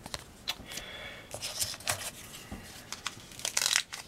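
Trading cards being handled and a foil card-pack wrapper being crinkled and torn: scattered light clicks and rustles, then a dense burst of crinkling and tearing near the end.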